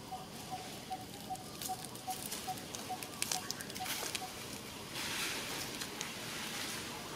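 Outdoor ambience: a short, high, steady pip repeating about three times a second, stopping about four and a half seconds in, with scattered light clicks and a brief rustling hiss about five seconds in.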